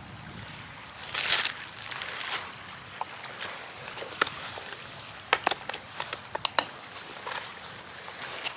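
Plastic food packaging being handled: a brief crinkle of a packet about a second in, then a cluster of sharp clicks and snaps from a small plastic tub being opened around the middle, over a steady hiss of breeze.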